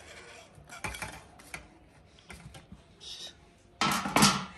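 Metal fork and skewer clicking and scraping against a stainless steel plate as grilled paneer tikka is pushed off the skewer: a string of light taps, then a louder clatter near the end.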